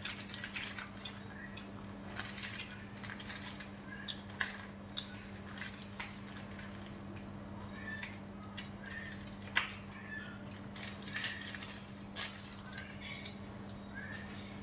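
A small plastic sauce sachet crinkling and crackling as it is worked open by hand, with short scattered squeaks, over a steady low hum.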